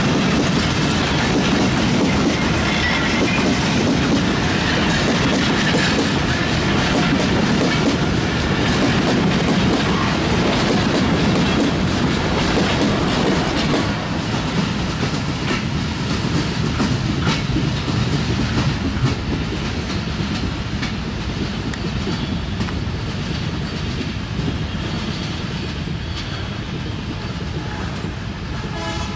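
Broad-gauge bogie oil tank wagons of a freight train rolling past close by: a steady rumble with the wheels clattering over rail joints. A little after halfway it drops in level, then fades slowly as the end of the train draws away.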